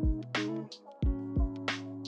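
Background music with a steady beat: a drum-machine kick and snare over held bass and melody notes.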